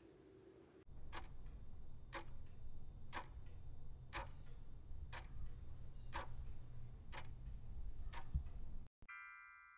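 Countdown timer sound effect: a clock ticking about once a second over a low hum. The ticking cuts off about nine seconds in and a ringing chime sounds.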